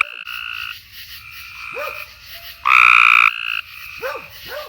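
Cope's gray tree frog close by giving its short, harsh trilled call once, about two and a half seconds in, with other gray tree frogs trilling more quietly around it.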